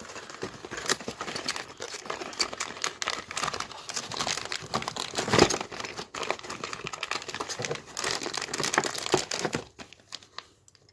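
Plastic packaging crinkling and rustling as it is handled and unwrapped, with one sharper, louder crackle about halfway through. It stops about a second before the end.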